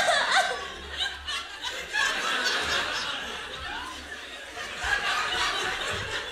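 Audience laughing, swelling and fading in waves.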